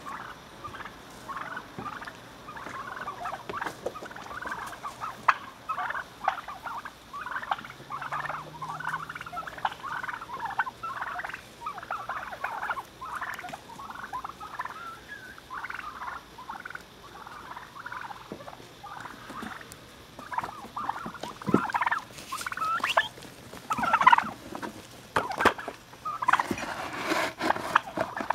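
A flock of wild turkeys calling close by: a constant chatter of short, overlapping calls. Over the last several seconds, sharp knocks and clicks come in among the calls.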